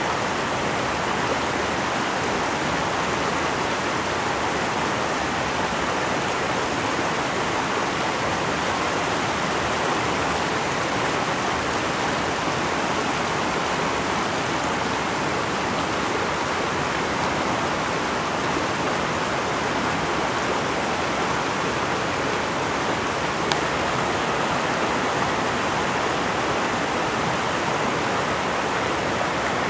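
Steady rush of a fast-flowing river, unchanging throughout, with one small click about two-thirds of the way through.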